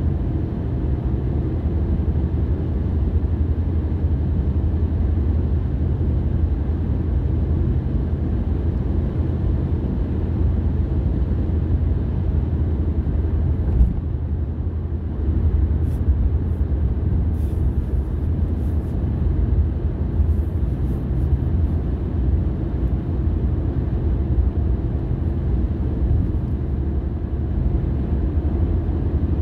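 Steady low rumble of a car driving along the road, engine and tyre noise, with a single short jolt about a third of the way through.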